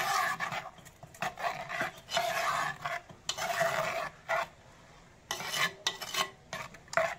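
Metal spoon stirring a thin coconut-paste fish curry in a black clay curry pot, scraping the sides and bottom in about eight uneven strokes with short pauses between.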